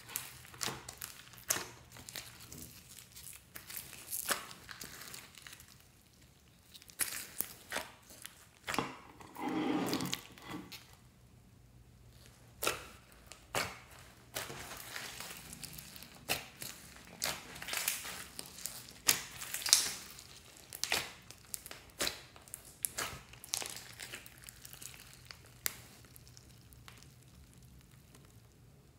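Hands kneading, squeezing and stretching slime mixed with foam beads and clay: irregular sticky crackles and clicks.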